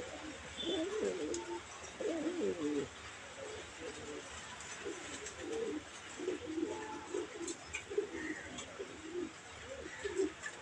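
Spanish pouter pigeon cooing: a run of low, wavering coos one after another with short gaps.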